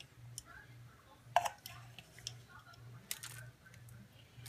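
Chopped almond pieces dropped and pressed onto chocolate-topped cookies on a parchment-lined baking sheet, giving a few scattered light clicks and taps, the sharpest about a second and a half in, over a low steady hum.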